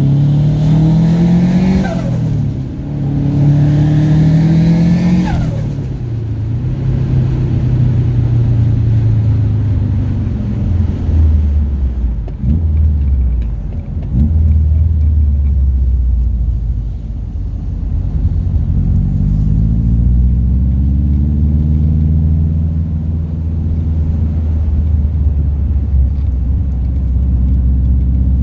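Turbocharged Subaru Impreza GC8 flat-four engine under hard acceleration. Revs climb, drop at a gear change about two seconds in, climb again and fall away when the throttle is lifted near six seconds. The engine runs lower and steadier through the middle, then revs build again slowly over the last ten seconds.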